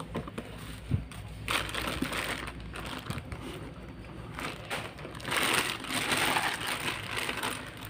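Plastic wrapping crinkling and rustling as hands handle and open a wrapped part, in two stretches: one about a second and a half in, and a longer one from about five seconds in. There is a light knock near the one-second mark.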